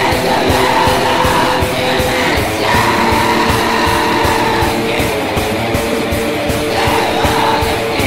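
Black metal recording: distorted electric guitars over fast, dense drumming, with a harsh yelled vocal coming in over parts of it.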